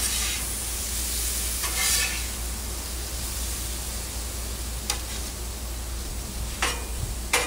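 Chicken, zucchini and steak sizzling on a Blackstone flat-top griddle, with a metal spatula scraping across the steel and clicking against it a few times, the loudest click near the end.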